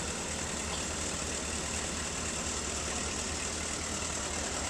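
An engine idling steadily: a constant low hum with an even hiss above it.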